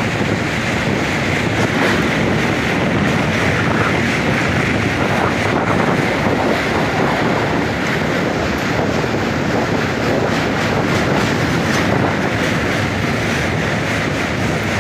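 Train running on the Mahanadi railway bridge, with a steady rumble and the clickety-clack of wheels over rail joints.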